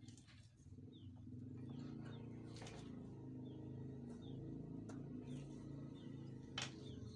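Pigeons cooing in low, repeated phrases, with small birds giving short chirps over them. A few sharp clicks, the loudest near the end.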